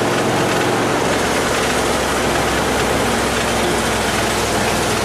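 A vehicle driving along: a steady low engine drone under loud, even road and wind noise.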